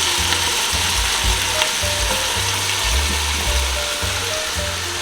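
Chicken, onion and spices frying in hot oil in a pan, a steady sizzle.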